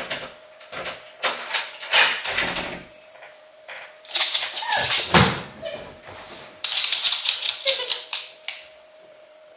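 Front door being shut and locked: a run of clicks and metal rattles from the handle, latch and keys, with a falling creak about five seconds in and a second burst of key-and-lock rattling near the end. A faint steady hum sits underneath.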